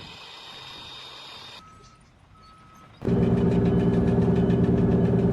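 A loud engine running steadily, starting abruptly about three seconds in. Before it there is a quieter steady hiss with a thin high tone, then a short near-quiet stretch.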